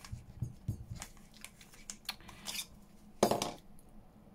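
Small clicks and rustles of craft supplies being handled on a tabletop, with one louder clatter about three seconds in.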